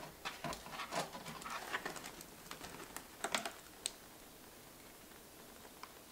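Light taps, clicks and rustles of donuts being set down on a tabletop and a white cardboard bakery box being handled. The clicks cluster in the first four seconds, with only a couple of faint ticks after that.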